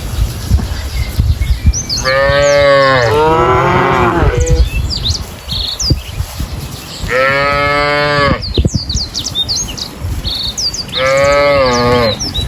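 Cow mooing three times, long drawn-out calls a few seconds apart, with small birds chirping throughout.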